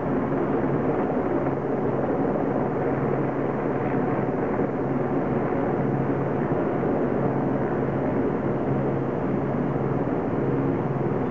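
Bell 412 helicopter's twin Pratt & Whitney Canada PT6T turboshaft engines running steadily at ground idle, a constant engine hum with a hiss of turbine noise.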